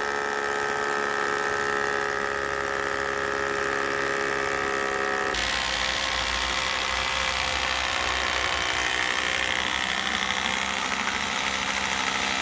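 Power drill motor running steadily as it drives a fastener. Its pitch drops suddenly about five seconds in, then it keeps running at the lower pitch.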